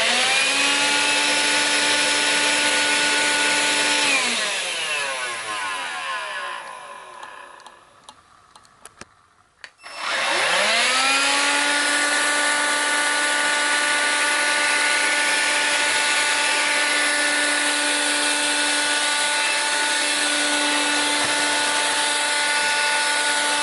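Electrolux Ergorapido ZB3325B cordless stick vacuum running with a steady high motor whine, then switched off about four seconds in, its motor spinning down with falling pitch to near silence. A few clicks follow, then it is switched back on and the motor spins up with a rising whine and runs steadily again.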